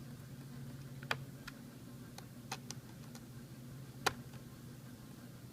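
About six light, sharp clicks and taps, scattered irregularly, over a steady low hum; the loudest comes about four seconds in.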